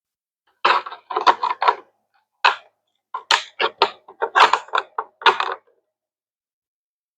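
3D-printed plastic tower parts clattering and knocking together as they are handled, in several quick runs of clicks and knocks that stop about two-thirds of the way through.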